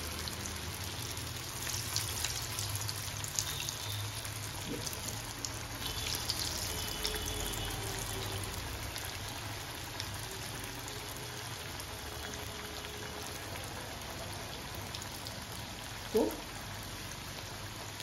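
Beetroot-and-potato kebab patties shallow frying in hot oil in a non-stick pan: steady sizzling, with sharper crackles in the first several seconds as two more patties go into the oil. A brief rising sound near the end.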